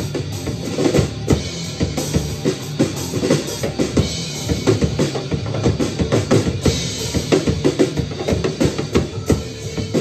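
Acoustic drum kit played in a rock beat: bass drum, snare and cymbal hits several times a second, along with a recorded rock song whose bass and guitar run underneath.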